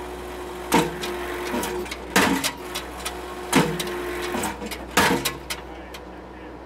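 Blue Diamond hydraulic post driver on a Case TV450 skid steer hammering a wooden post into the ground: four heavy strikes about a second and a half apart, each with a short ring. Underneath, the skid steer's diesel engine and hydraulics run steadily, heard from inside the cab.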